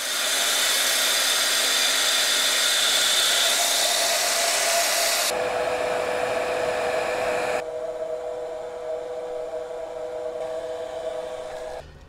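Electric heat gun running steadily, blowing hot air onto grey PVC conduit to soften it for bending. The steady blowing changes character abruptly about five seconds in and again a couple of seconds later, then cuts off just before the end.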